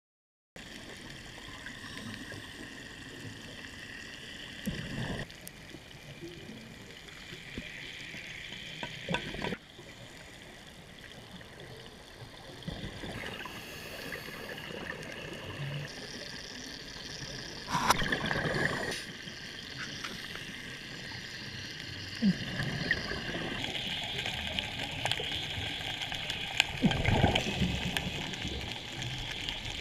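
Underwater sound of a scuba dive: a steady hiss with a few louder gurgling surges of bubbles, the diver's exhaled air rising from the regulator.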